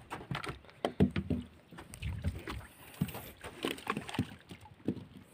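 Irregular splashes and knocks on the water around a small boat, with a few heavier low thuds.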